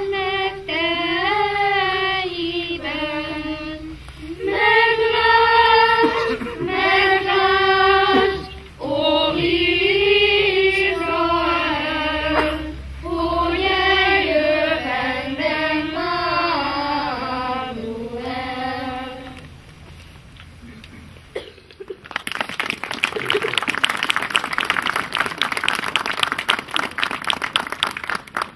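Children's choir, with an adult voice among them, singing a song unaccompanied; the song ends about two-thirds of the way through. After a short pause the audience applauds.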